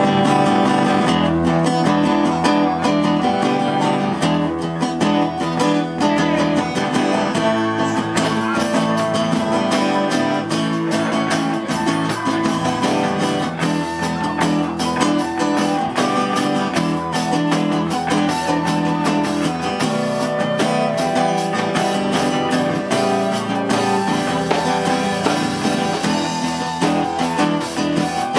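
Live band playing an instrumental passage: strummed acoustic guitar over electric bass and a drum kit, with a flute.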